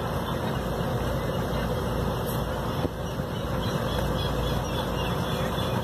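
A boat's engine running steadily and evenly, with no change in speed.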